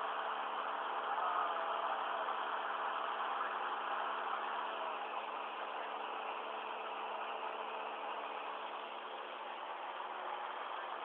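Light aircraft's engine and propeller running steadily in flight, an even hum that holds the same pitch.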